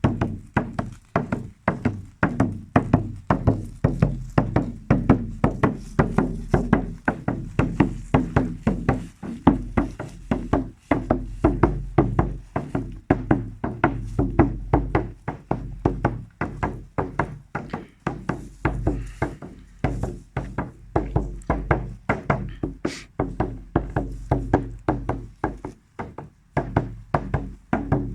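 Hand drum beaten in a steady fast rhythm, about three to four beats a second, each beat with a deep boom, with a short break near the end.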